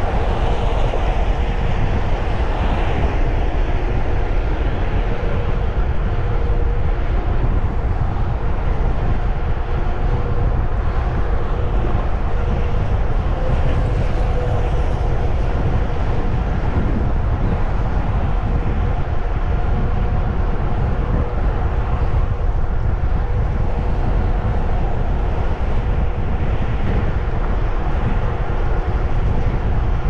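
Wind rumbling steadily on the microphone of a camera riding along on a moving bicycle.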